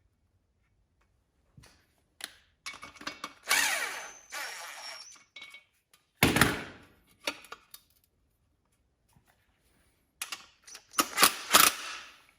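Hand tools and metal parts clanking, scraping and clicking in irregular knocks while bolts are fitted on a lawn tractor frame. There is one loud knock about six seconds in and a quick run of clicks near the end.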